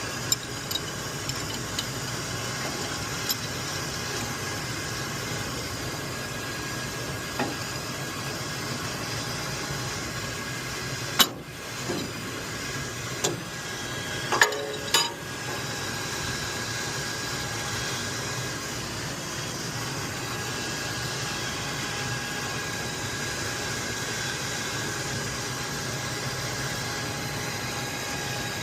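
Steady machinery hum with a faint whine, broken by a few sharp metallic clinks and knocks of hand tools on metal, the loudest in a cluster about eleven to fifteen seconds in.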